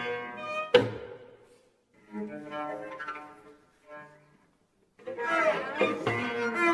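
Cello playing a contemporary new-music piece: bowed phrases broken by short silences, with a sharp accented attack about a second in and a denser passage of sliding notes near the end.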